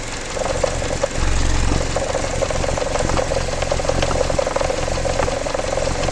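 Jeep Patriot's 2.4-litre four-cylinder engine running with a rapid, steady knocking whose cause the owner does not know. The low rumble swells briefly about a second in.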